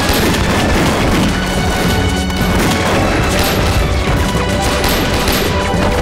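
Dense, continuous volley of gunfire from several Mauser C96-style pistols, with heavy impacts, over dramatic background music.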